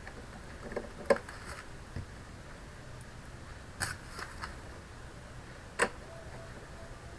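Scattered sharp clicks and taps of a screwdriver and small screws being handled as screws go back into the computer's stand frame, loudest about a second in and again near six seconds, over a faint steady hum.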